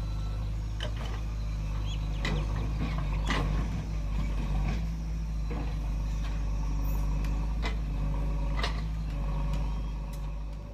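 Backhoe loader's diesel engine running steadily under load, with a sharp metallic clank every second or two as the bucket works.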